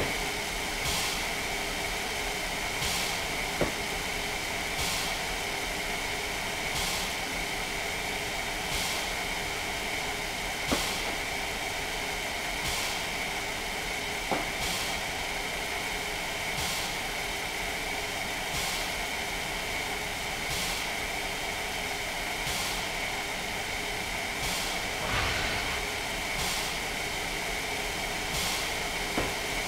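Train running with a steady hiss and a constant high tone, a short click sounding about every two seconds.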